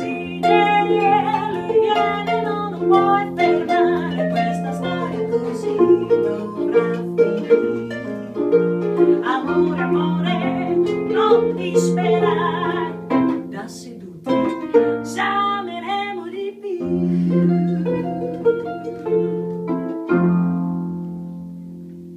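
Instrumental blues music: plucked-string notes over a sustained bass line, with a final chord ringing out and fading near the end.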